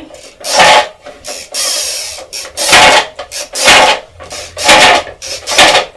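Toy game wheel from a Wheel of Fortune board game being spun, rasping loudly in repeated bursts about once a second.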